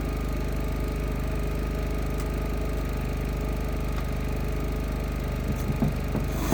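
Bench belt grinder's motor and sanding belt running steadily with an even hum, with a few light ticks near the end.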